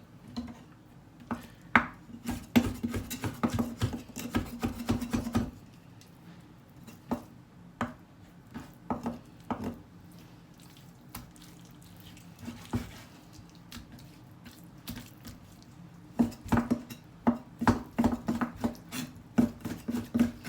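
Kitchen knife slicing raw chicken on a cutting board: irregular runs of knocks as the blade meets the board, busy for a few seconds at the start and again in the last few seconds, sparse in between. A faint steady low hum runs underneath.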